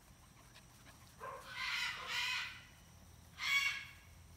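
Scarlet macaw squawking: a long harsh call about a second in, then a shorter, louder squawk near the end.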